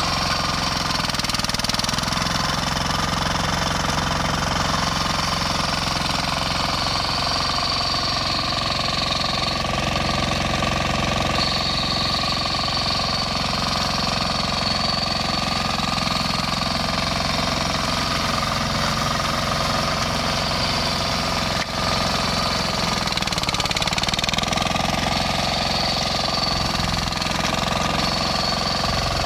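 Flail mower's 18 hp diesel engine running steadily, with a brief dip in level about twenty-two seconds in.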